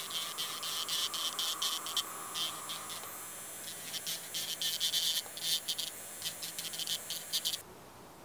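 Electric nail drill running with a cuticle bit, a high whine broken by rapid scratchy bursts as the bit grinds away loose cuticle skin at the nail edge. It cuts off suddenly near the end.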